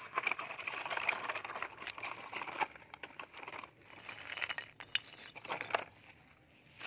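Broken fired-clay brick pieces clinking and knocking against each other and against a plastic toy dump truck's bed as they are handled and stacked: a string of irregular sharp clinks and scrapes.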